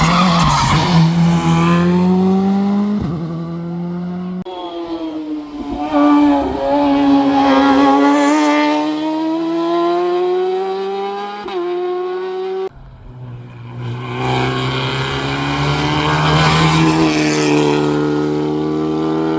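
Race car engine at high revs, its pitch climbing under acceleration and dropping at gear changes, with the sound changing abruptly twice.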